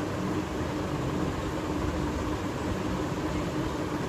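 Steady background hiss with a faint low hum.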